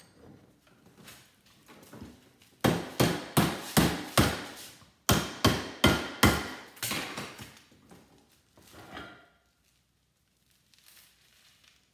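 Hammer blows on a salvaged microwave part clamped in a bench vise, struck to knock it loose: two quick runs of about five sharp strikes each, a short pause between them, then a few lighter knocks.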